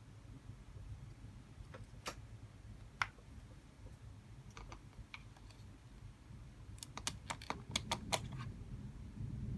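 Light plastic clicks and taps of small model pieces being handled: a few scattered clicks, then a quick run of about eight clicks near the end.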